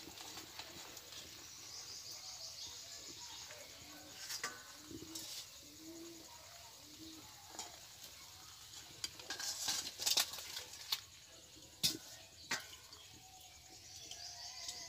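Nimki frying in hot oil in a metal wok, a faint sizzle, while a slotted metal spoon scrapes and knocks against the wok lifting the fried pieces out, with a few sharp metal clinks in the second half.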